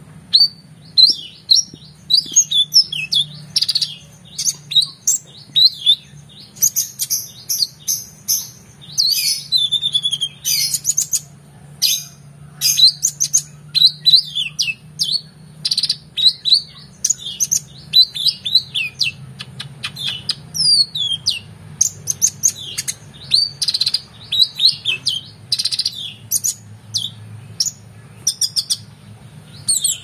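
Male purple-throated sunbird (kolibri ninja) singing an energetic, varied song full of mimicked phrases. It is a fast run of high chirps, trills and quick slurred whistles with only brief pauses.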